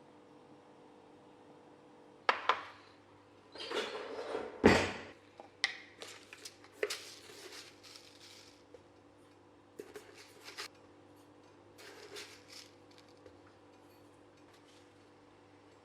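Household clatter of dishes and utensils being handled: a run of clinks and knocks, the loudest about a third of the way in, thinning to a few scattered clicks over a steady low hum.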